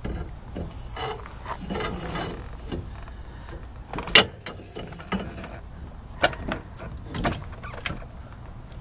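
Replacement rear axle shaft of a Mopar 7.25 rear end being slid into its axle housing: metal scraping and clunking as it goes in, with a sharp knock about four seconds in and a few lighter knocks after.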